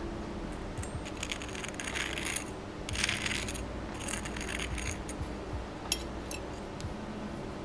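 A metal fork pressing into the crisp breadcrumb crust of a fried chicken patty on a ceramic plate: several short bursts of crackling crunch, then a few sharp clicks of the fork against the plate, over a steady low hum.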